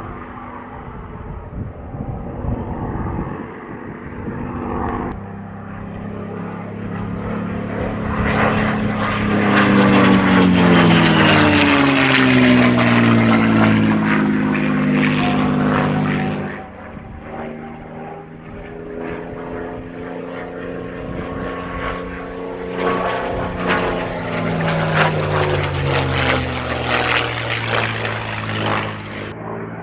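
Propeller aircraft flying past, loudest about ten seconds in, with its engine note falling as it goes by and then dropping away abruptly. A second pass follows, its engine note again falling in pitch near the end.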